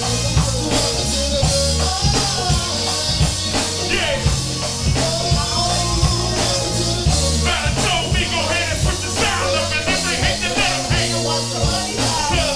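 Rock song with drums, bass and singing, played as background music.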